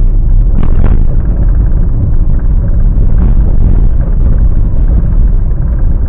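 Steady low rumble of a car being driven, engine and road noise heard from inside the car.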